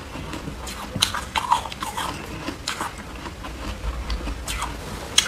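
Soft, crumbly 'cotton' ice being chewed: irregular crunches and crackles, with a few sharper ones about a second in and near the end.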